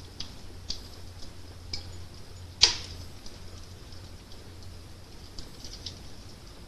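Wood fire crackling: scattered small pops and snaps over a low steady rumble, with one loud sharp pop about two and a half seconds in.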